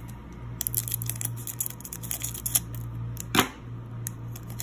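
Foil wrapper of a Pokémon booster pack crinkling and crackling in the hands as the pack is worked and torn open at the top, with one sharp crack a little over three seconds in as the loudest sound.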